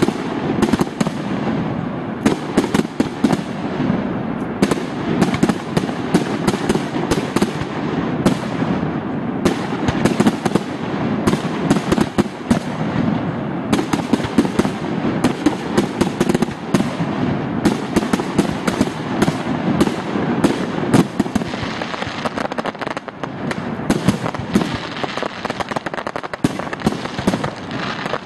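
Aerial fireworks bursting in a dense, unbroken run of bangs and crackle, with no pause throughout.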